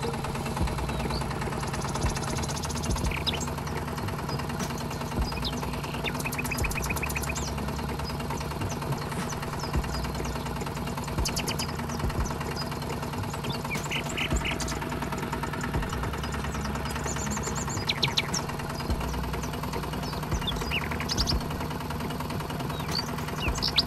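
Tractor engine running steadily with a knocking idle beat.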